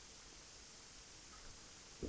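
Near silence: faint room tone with a low even hiss.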